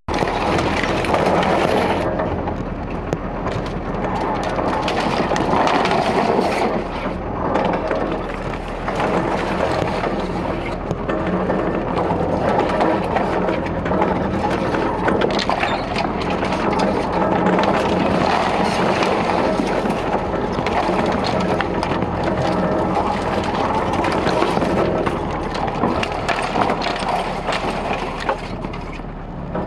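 Land Rover driving slowly along a rough, muddy track: a steady engine drone heard from the cab, with frequent knocks and rattles as the vehicle jolts over the ruts.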